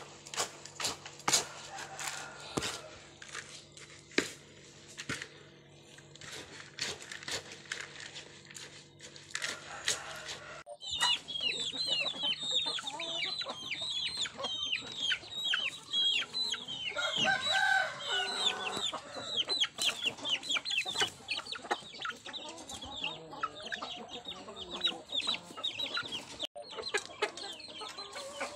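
Spoon scraping and clicking against a plastic bucket as chicken feed is mixed by hand, over a steady low hum. From about eleven seconds in, caged chickens call excitedly: many high, quickly falling peeps and clucks, with a longer call near the middle.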